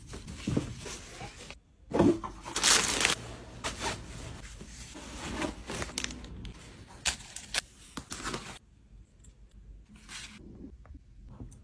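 Unboxing handling noise: paper packaging and plastic wrap rustling and crinkling, with short scrapes, in irregular bursts. It breaks off abruptly twice and is fainter over the last few seconds.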